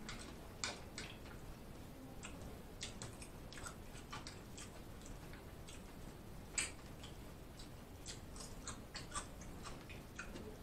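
Quiet eating sounds: chewing and mouth clicks, with scattered light taps of a fork and knife against the plate, the most distinct about a second in and again after six seconds.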